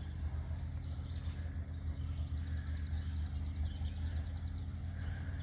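Steady low hum of an engine running at idle, with a rapid high-pitched ticking trill starting about a second and a half in and lasting about three seconds.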